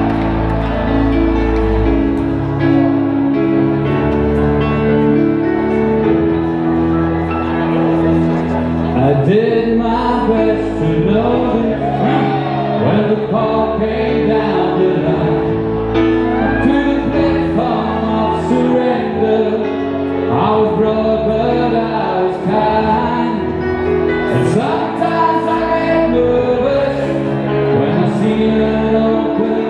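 Live song with held keyboard chords changing every second or so. A man starts singing about nine seconds in.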